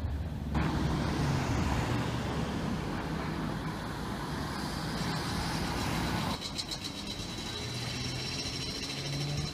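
Road traffic noise, a vehicle going by with a steady rush of tyres and engine, which starts abruptly and cuts off suddenly about six seconds in; then quieter outdoor ambience.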